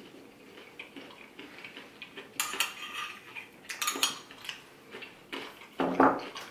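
A metal spoon clinking and scraping in a small glass bowl of yogurt: quiet at first, then a run of sharp clinks from about the middle. There is a louder knock near the end as the glass bowl is lowered to the table.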